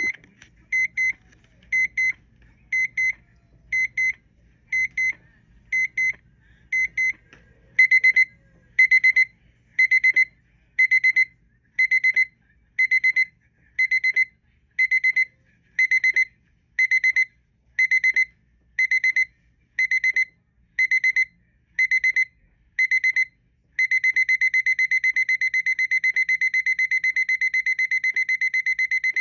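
Digital alarm clock beeping: a high electronic beep in short bursts about once a second, getting louder about eight seconds in. Late on it changes to fast, unbroken beeping.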